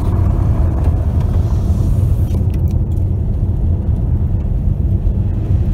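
Car driving, heard from inside the cabin: a steady low rumble of road and engine noise, with a few faint ticks about two and a half seconds in.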